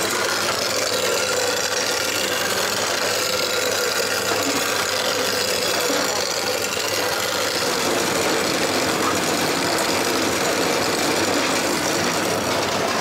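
Rocket-grain boring rig running steadily as its drill bores the core out of a pressed Bun Bang Fai rocket's propellant grain, an even mechanical drone without a break.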